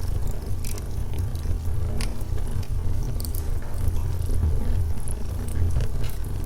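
Wood fire burning in a fireplace: logs crackling with irregular sharp snaps and pops over a steady low rumble.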